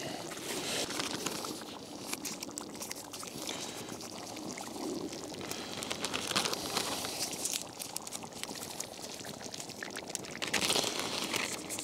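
Chicken curry simmering in a Dutch oven: a steady bubbling with many small pops.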